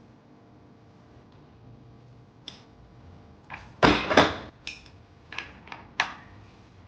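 A few sharp clicks and knocks of hands handling tools or parts, the loudest two close together about four seconds in, followed by several lighter clicks.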